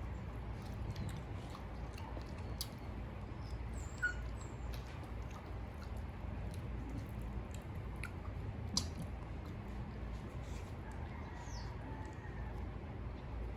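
Eating sounds, chewing with small clicks of food and dishes, over a steady low hum. A sharper click comes about four seconds in and again about nine seconds in, with a few faint high chirps.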